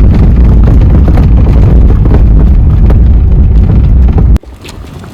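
Loud, heavy low rumble of a car in motion, with wind buffeting the microphone, cutting off abruptly about four seconds in; quieter scattered knocks follow.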